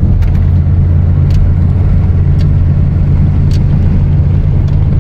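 Car driving at steady speed, heard from inside the cabin: a steady low engine and road drone with a few faint ticks.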